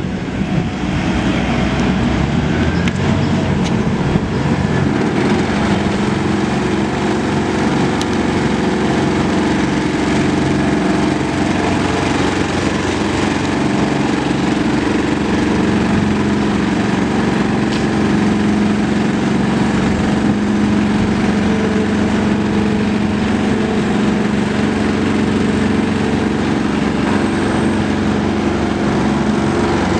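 Engine of road-works machinery running steadily, a continuous drone.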